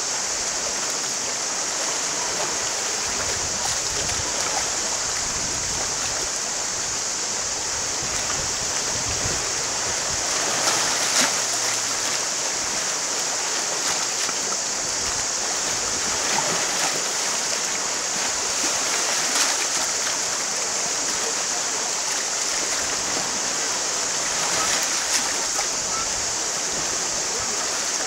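Steady wash of gentle sea waves on a pebble shore, with a constant high hiss over it and a few brief louder moments, around ten seconds in and near the end.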